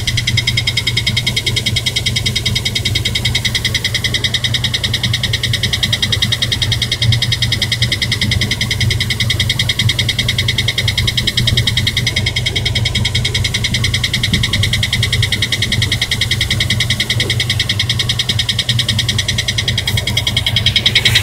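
2003 Dodge Durango running with a rapid, even ticking over a steady engine hum, a noise its owner traced to low transmission fluid.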